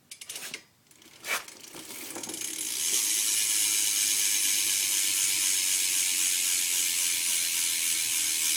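BMX rear hub ratcheting as the back wheel is spun: a few clicks and a knock, then the pawl clicking builds to a fast, steady buzz that cuts off suddenly near the end.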